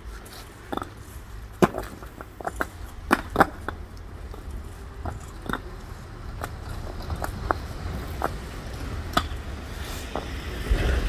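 Concrete paving blocks clacking against one another in irregular sharp knocks as they are set into place by hand, over a steady low rumble. A louder, noisier swell comes near the end.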